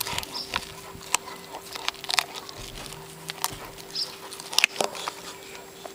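Alaskan malamute puppy gnawing a raw bone, its teeth cracking and crunching on it in irregular sharp snaps, the loudest cluster a little past the middle.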